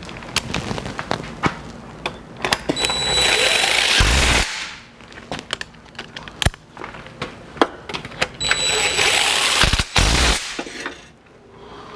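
An impact wrench runs in two bursts of about two seconds each, driving nuts onto the catalytic converter's mounting studs, with sharp metal clinks of tools in between.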